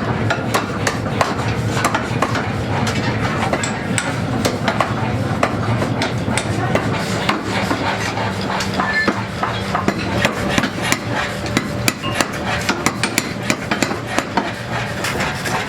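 Metal being struck with a hammer over and over: quick, irregular blows, coming thicker near the end, over a steady low machine hum.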